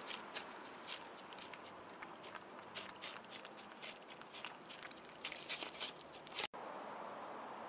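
Cat eating wet food from a plastic tray: faint, quick, irregular wet clicks of chewing and lapping. About six and a half seconds in they break off abruptly, leaving a steady hiss.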